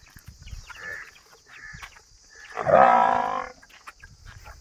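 Water buffalo calling once, a drawn-out call of a bit over a second about two-thirds of the way in, preceded by two short, fainter, higher calls.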